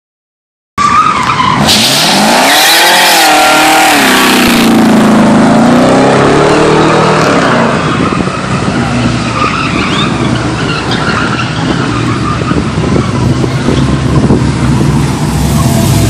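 Pickup truck doing a burnout: the engine revs up and down hard while the tires spin and squeal, loudest in the first few seconds. It then settles into a steady din of engine and spinning tires.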